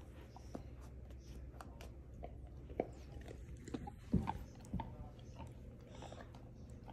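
Dalmatian chewing a toddler's small toy: a run of faint, quick, wet clicks and crunches, with a few louder knocks about three to five seconds in.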